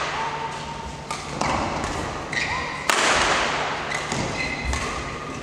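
Badminton rally in an echoing hall: sharp racket-on-shuttlecock hits, the loudest about three seconds in, with court shoes squeaking on the floor between shots.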